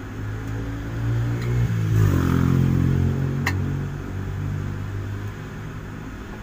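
A vehicle engine running close by: its hum rises in pitch and gets louder about two seconds in as it revs, then eases off near the end. A single sharp click about halfway through.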